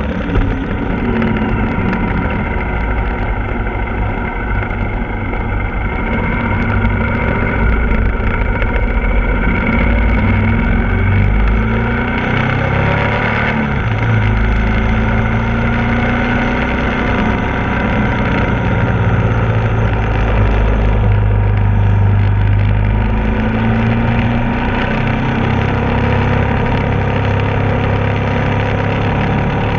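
Ducati Multistrada 1260 S's V-twin engine running under way, its pitch rising and falling several times with throttle and gear changes, over a heavy rush of wind noise.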